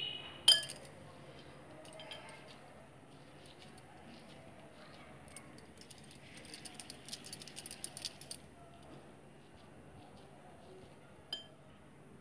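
Light clinks and taps of hands against a glass mixing bowl while scooping and rolling crumbly laddoo mixture: one sharp clink about half a second in, a flurry of small taps a few seconds later, and another clink near the end.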